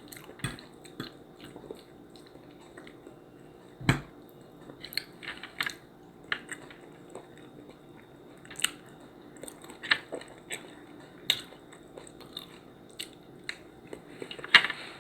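Close-up eating sounds: a person chewing, with frequent small irregular mouth clicks and smacks and one louder knock about four seconds in.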